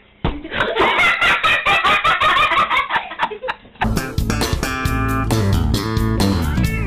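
Music with guitar and bass guitar, starting abruptly about four seconds in. Before it, a wavering high-pitched sound with scattered knocks.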